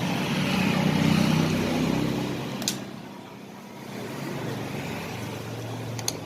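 A vehicle engine rumbling close by, swelling over the first two seconds and then fading away. Two sharp clicks come about a third of the way in and near the end.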